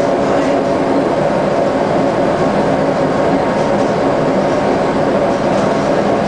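Scania L94UB single-deck bus with a DC9 diesel engine, heard from inside the passenger cabin while under way: the engine runs at steady revs together with road and body noise.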